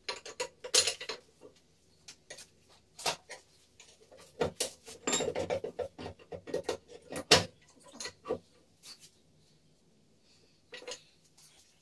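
Metal hand tools clanking and knocking on the cast transmission casing of a Terex 860 backhoe loader as it is taken apart: irregular metallic knocks and clinks, busiest about halfway through, with the loudest knock a little after.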